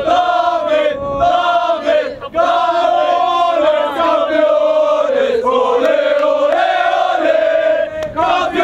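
A large crowd of voices chanting a song in unison, in continuous sung phrases with brief breaks between them.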